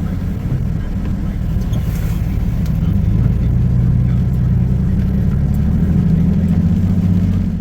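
Motor vehicle engine running at a steady low hum, getting a little louder about three seconds in.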